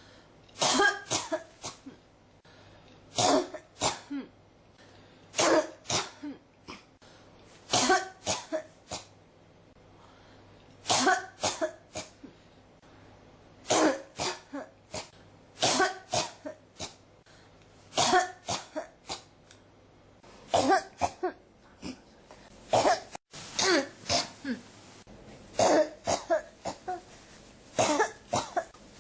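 A person coughing in repeated fits: a loud cluster of several coughs every two to three seconds, over and over.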